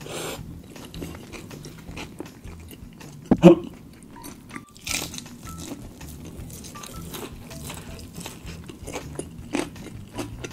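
Close-miked eating sounds: biting into and chewing crispy fried chicken and a chicken burger, with crunches of the coating. The loudest crunch comes about three and a half seconds in, and further bites come around five seconds and near the end.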